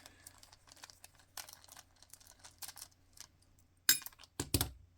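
Small metal clicks and light scraping from a lock cylinder and picking tools being handled, with a loud sharp click near four seconds in and two more sharp knocks with a dull thump shortly after.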